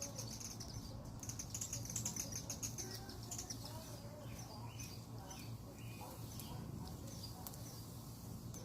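Homemade glue slime being stirred and squished, a quick run of sticky crackling clicks that thins out after about three seconds into scattered small squeaks.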